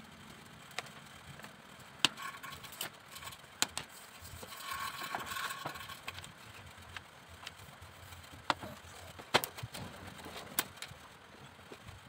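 Bamboo cage-frame strips and rods clicking and knocking as they are handled, fitted together and set down on a workbench: scattered sharp taps, with a short scraping rustle around the middle.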